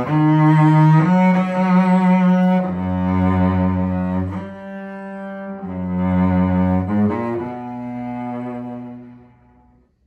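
Antique French cello, c. 1900 and likely Mirecourt-made, restored with a new bridge and sound post, being bowed in slow, sustained notes, often two strings at once. The last note is held and dies away near the end.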